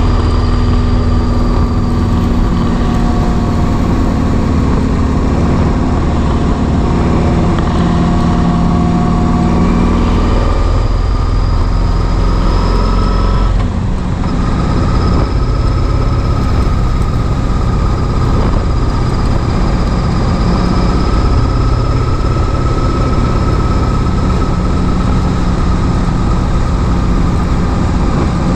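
Kawasaki VN2000 V-twin motorcycle engine running under way at road speed, with a steady engine note and road noise. About halfway through the note briefly drops out and then picks up again.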